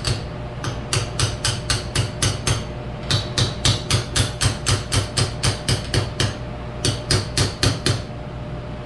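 Light hammer taps, about four a second, in three runs with short pauses between them, tapping a part of a hydraulic cylinder being rebuilt into place.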